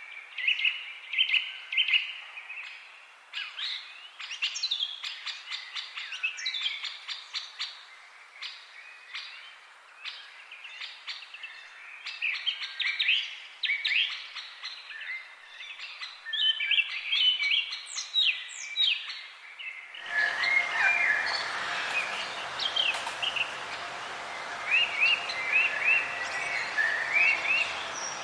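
Several songbirds chirping and singing in quick, overlapping phrases. About 20 seconds in, the background changes abruptly to a fuller, noisier ambience while the birdsong continues.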